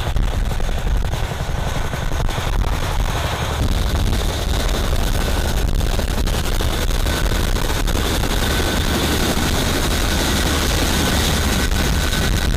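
CH-47 Chinook tandem-rotor helicopter running on the ground with its rotors turning: a steady, loud, fast rotor thump under a high, even turbine whine.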